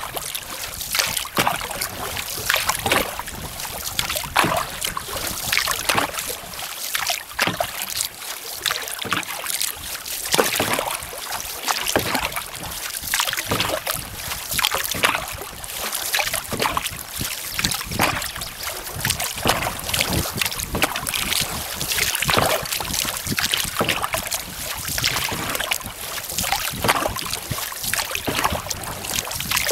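Single-blade wooden canoe paddle strokes: the blade dips and pulls through lake water in a steady rhythm, splashing and gurgling with each stroke about every second or so.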